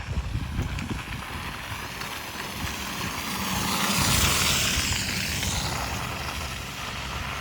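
A car driving past along the gravel forest stage road: it comes closer, is loudest about four seconds in with engine and tyre noise, then fades away.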